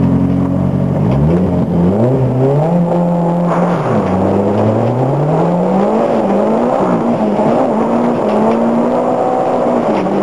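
Toyota Glanza's engine heard from inside the car, held at steady revs and then, from about a second in, climbing in pitch as it accelerates hard. It drops sharply at a gear change about four seconds in, climbs again, then runs at fairly steady revs with small dips.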